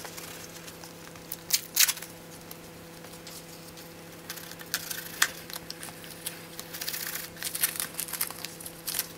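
Plastic packing tape being picked at and peeled off a cardboard parcel: scattered crackling rips, a couple about 1.5 seconds in, then more often from about 7 seconds in. A faint steady hum lies underneath.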